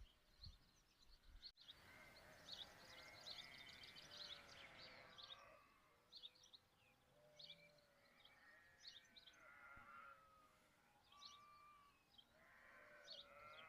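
A flock of sheep bleating at a distance, many overlapping calls starting about two seconds in, thinning out midway and swelling again near the end. Small birds chirp throughout.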